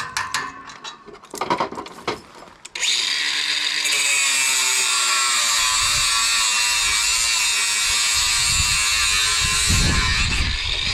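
Electric jackhammer running steadily for about eight seconds, breaking out the concrete set around a metal gate post. It starts abruptly about three seconds in and cuts off just at the end, after a few clicks and knocks.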